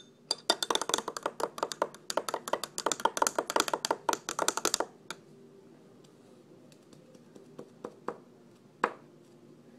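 A spoon stirring soapy water fast in a drinking glass, clinking quickly against the glass for about five seconds. Then it stops, and a few single taps follow.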